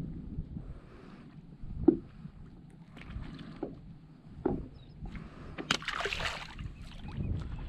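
A speckled trout (spotted seatrout) is released and lands in the shallow water with a splash about six seconds in. A few light knocks and water sounds come before it.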